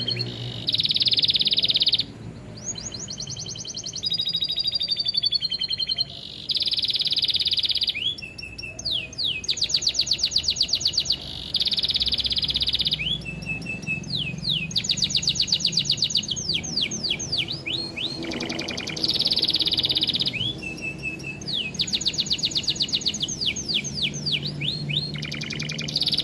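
Domestic canary singing a continuous string of phrases, each a second or two long. The phrases are rapid repeated trills and buzzy notes, high-pitched. It is a canary song trained with lovebird-style phrases.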